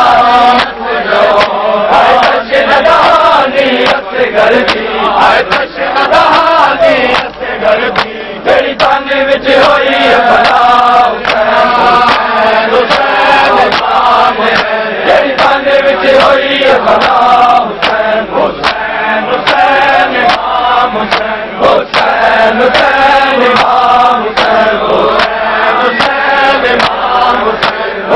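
A crowd of men chanting a noha (mourning lament) together, with sharp hand slaps on bare chests (matam) running through the chant.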